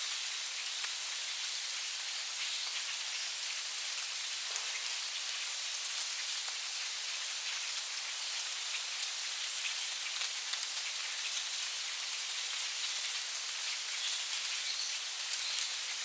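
Steady forest rain falling on leaves: an even hiss of rain with many small, separate drop ticks.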